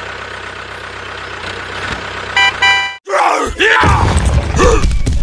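A small engine running steadily, then two short electronic beeps. About three seconds in, the sound cuts off abruptly and gives way to loud edited-in sound effects with sweeping pitches over a deep rumble and sharp clicks.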